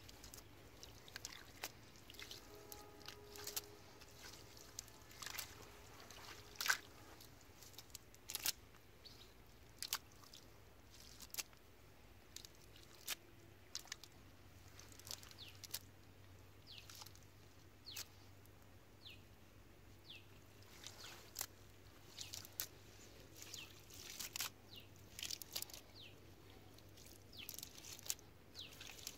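Irregular wet clicks, squelches and crackles of soft mud as hands pull fish out of a mud-soaked cast net.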